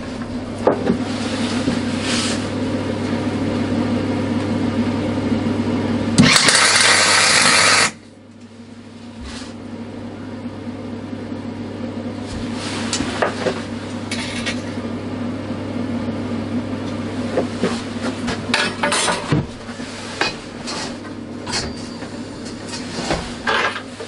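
Electric welder humming steadily, broken about six seconds in by a loud crackling burst of a little under two seconds as a tack weld is struck on the steel bike-frame dropouts. Several shorter crackles and clicks follow later on.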